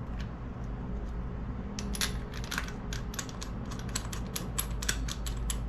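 Ratchet wrench clicking in quick strokes, about four clicks a second, starting about two seconds in, as a fastener is worked on the Suzuki DR200 engine.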